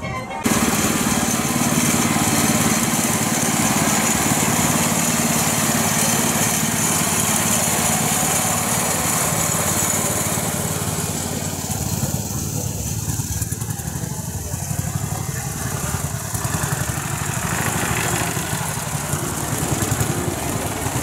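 Engine of a vintage vehicle running steadily close by, its firing strokes coming fast and even. It cuts in abruptly about half a second in.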